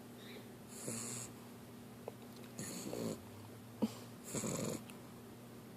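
Puppy snoring in her sleep with her mouth open: three even breaths, one about every second and a half to two seconds, each a breathy hiss with a low rattle.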